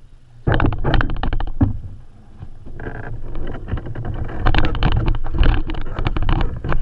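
Open canoe on the lake: irregular splashing and knocking of paddle and water against the boat over a low rumble, starting about half a second in.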